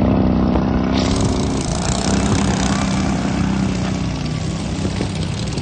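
Racing lawn mower engines running at steady high revs, with small shifts in pitch and faint rising engine notes near the end.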